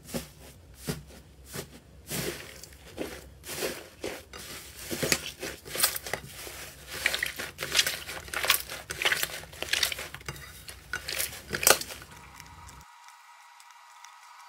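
Slime being squeezed and pressed by hands, giving a run of irregular crackles, clicks and pops that stop about twelve seconds in, leaving only a faint steady hum.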